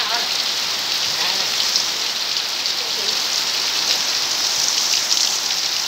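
Heavy rain falling steadily on bare packed earth, a continuous even hiss of drops.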